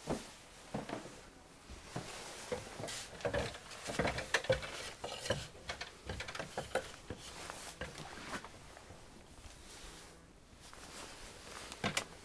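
Irregular light knocks and taps from climbing and handling a timber sliding loft ladder, with a sharper knock near the end.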